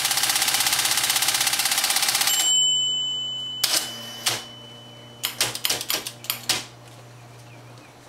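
IBM Personal Selectric electric typewriter auto-repeat spacing with the space bar held down: a fast, even run of mechanical clicks for about two and a half seconds. A steady high whine follows for about a second, then a handful of separate sharp clicks from its keys and mechanism, over the low hum of its running motor.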